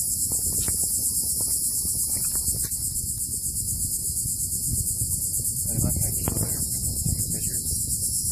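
Insects trilling in a steady, high-pitched chorus, over a low rumble.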